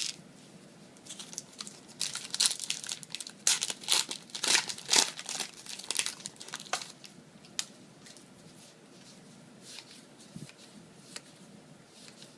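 Yu-Gi-Oh booster pack wrappers being crinkled and torn open: a run of loud rustling and tearing for about six seconds, then only faint, occasional rustles.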